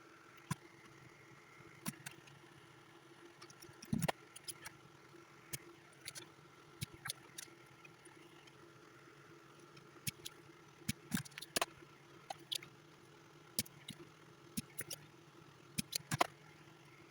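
Irregular small clicks, snips and taps of hand tools and wire being handled while wiring a valve amp's turret board, over a faint steady hum.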